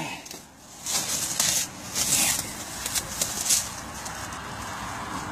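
Plastic cling wrap crinkling and rustling in several short bursts as it is pulled and torn off a steering wheel.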